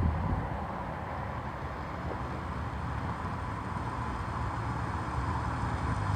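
Chrysler Crossfire SRT6's supercharged 3.2-litre V6 engine running steadily, heard during a check for misfires.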